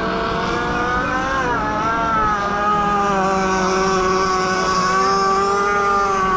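Radio-controlled racing boat's small engine running flat out at high revs as the boat speeds across the water. Its pitch dips slightly about two seconds in, then holds steady.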